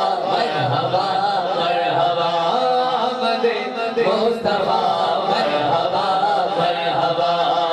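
Three men's voices chanting a Punjabi naat together into microphones, a continuous sung devotional melody.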